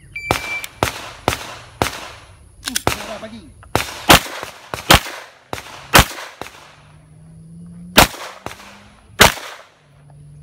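A shot timer's short high start beep, then a string of about a dozen pistol shots, many fired as quick pairs with short pauses between groups.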